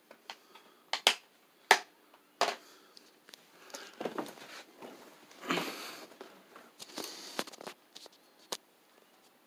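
Handling noise from a handheld phone camera: several sharp clicks and knocks in the first two and a half seconds, then rustling and scuffing as it moves.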